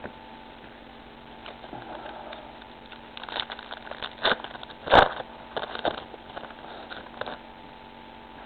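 A foil trading-card pack being torn open and its wrapper crinkled: a run of irregular crackles, with one sharp crack about five seconds in.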